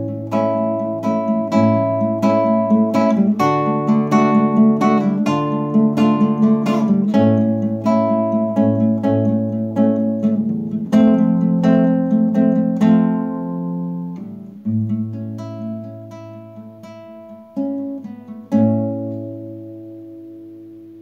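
Nylon-string classical guitar playing the closing instrumental bars of a song: plucked notes and chords at a steady pace that thin out after about fourteen seconds. A final chord is struck near the end and left to ring and fade.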